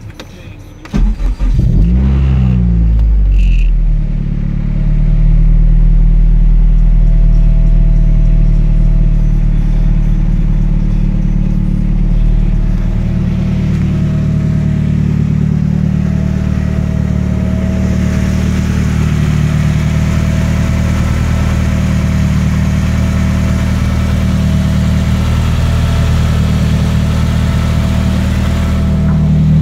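Honda K20 i-VTEC four-cylinder in a Toyota MR2 starting up about a second in, revs flaring briefly, then running at a fast idle that settles to a lower, steady idle about 13 seconds in.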